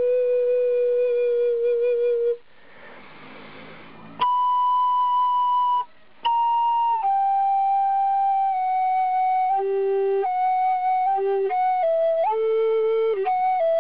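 Solo flute playing a slow melody of long held notes, one note at a time. The playing stops for about two seconds a couple of seconds in, leaving a quieter hiss, then resumes on a higher note; it breaks off again briefly near the middle.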